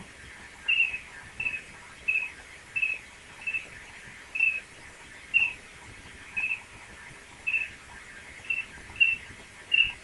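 A woman imitating a cricket with her mouth: about a dozen short, high chirps, each made with a flutter-tongue roll, spaced irregularly less than a second apart.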